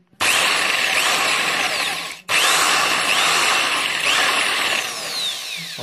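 Buildskill corded electric drill boring into a plastered wall, the motor whining at speed as the bit grinds through. It stops for an instant a little over two seconds in, then starts again.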